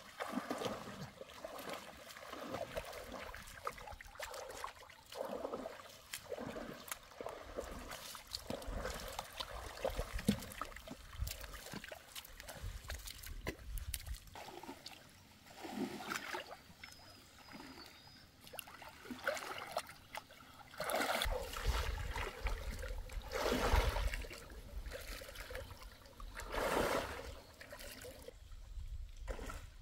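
Shallow pond water splashing and sloshing as people wade through it and drag a fishing net, in irregular swishes and splashes, with a low rumble joining in for the last third.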